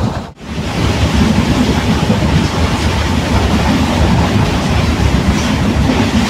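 ICF passenger coach running at speed: a steady, loud rumble and rattle of wheels on the track, heard from inside the coach. The sound cuts out for a moment about a third of a second in, then carries on unchanged.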